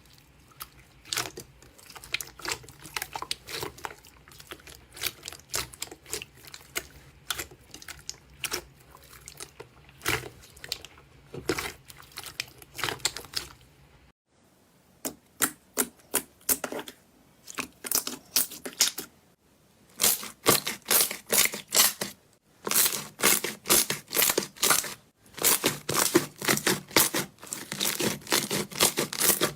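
Slime being squeezed and pressed by hand, giving rapid sharp clicks and crackles. About halfway through it cuts to louder clicking in quick runs of several clicks at a time.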